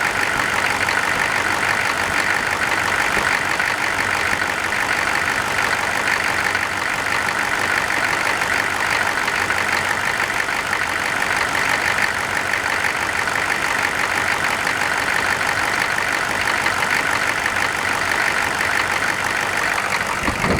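Cold engine idling with its engine-driven cooling fan running steadily and loudly. The fan is not disengaging as it should on a cold engine, which the owner takes for a faulty fan clutch.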